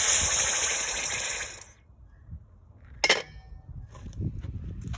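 Hot copper ingot quenched in a steel bowl of water: a loud steam hiss for about a second and a half that fades out. About three seconds in comes a single metal clink with a short ring.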